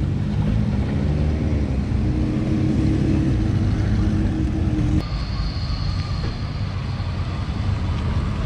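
Car engine running at low speed as a black Lexus IS300 (Altezza) drives slowly by, a low, steady drone. About five seconds in the sound cuts abruptly to a different engine, a silver Datsun S30 Z rolling past, with a faint high whine alongside.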